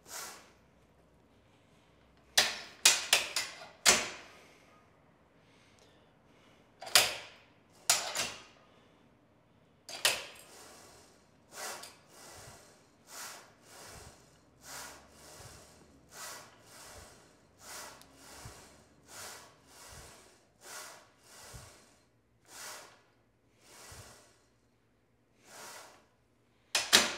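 Bench press on a Smith machine: the steel bar clanks sharply several times as it is unhooked and set up, then short breathy sounds come about once a second in time with the reps, and a loud clank near the end as the bar is hooked back onto the rack.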